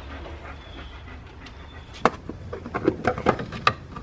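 A single sharp click about two seconds in, then a quick run of sharp clicks and knocks, typical of hands working the plastic cover of a Ford Bronco's under-hood fuse and relay box.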